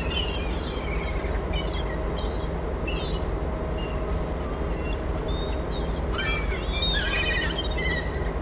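Gulls calling in short, high chirps and cries, scattered and then busier about six seconds in, over a steady low rumble.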